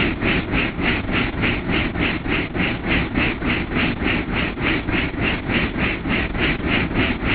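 Helicopter in flight: engine running and the main rotor beating in a steady rhythm, about four beats a second, over a constant rumble.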